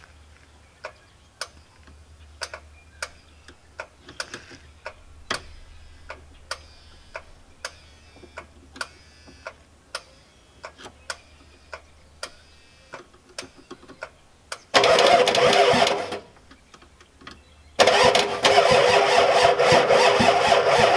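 1993 Ford F-250's 7.3L IDI diesel engine being cranked by its starter twice, a short try about 15 s in and a longer one near the end, without firing: the engine won't start, which the owner puts down to a weak injection pump not getting fuel to the injectors. Before the cranking, a faint click repeats about twice a second over a low hum.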